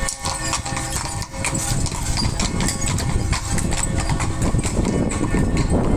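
Horse hooves clip-clopping as a horse-drawn carriage passes, with church bells ringing. The low rumble underneath grows louder toward the end.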